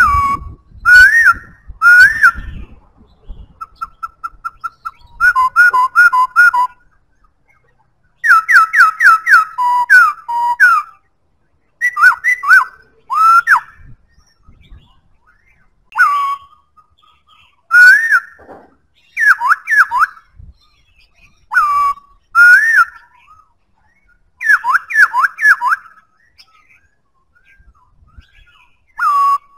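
Black-throated laughingthrush singing: loud, clear whistled phrases of several quick rising and falling notes, repeated again and again with short pauses between.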